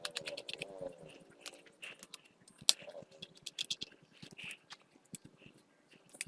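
Small screwdriver working the tiny screws out of the metal mounting frame on a 2.5-inch laptop hard drive: irregular light clicks and scrapes of metal on metal, one sharper click about two and a half seconds in.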